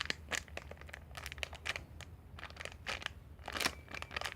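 Crinkling and crackling as a squishy toy and its wrapping are handled, in irregular quick crackles, over a faint steady low hum.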